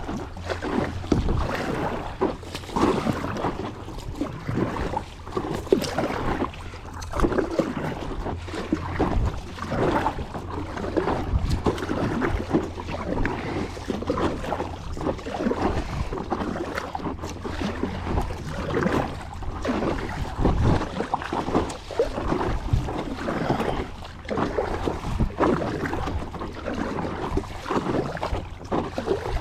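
Paddle strokes swishing and splashing through the water, with wind buffeting the microphone.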